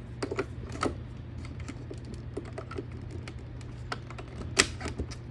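Irregular sharp clicks and taps of the plastic parts of a chick brooder heating plate being handled and pushed together, with the loudest click about four and a half seconds in.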